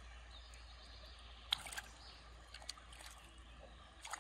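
Faint sloshing and trickling of shallow river water as fish are handled in a submerged keepnet, with a few short sharp splashes, the sharpest about a second and a half in.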